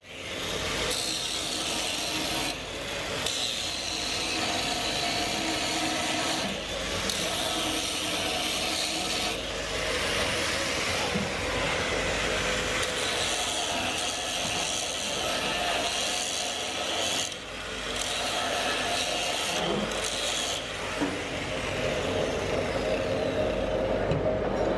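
Angle grinder grinding a steel workpiece: a continuous hissing grind in passes of a few seconds, with brief breaks between them.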